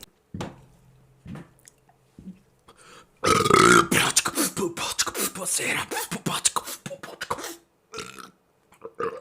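A person's long, loud burp, starting about three seconds in and lasting about four seconds, rough and broken rather than one smooth tone.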